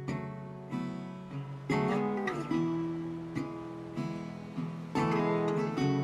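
Acoustic guitar music: strummed chords struck roughly once a second, each left ringing until the next.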